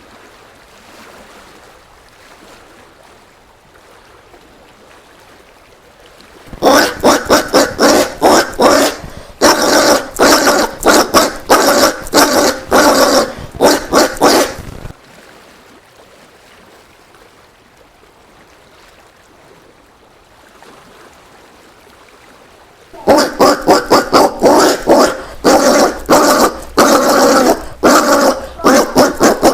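Collared peccary (caititu) calling: two bouts of rapid, loud, repeated grunting barks, each lasting several seconds, with a quiet gap between them.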